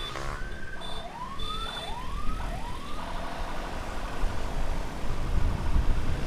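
Emergency siren sounding a series of quick rising whoops, about four of them, which stop about three seconds in, over steady road and wind noise from travelling in traffic.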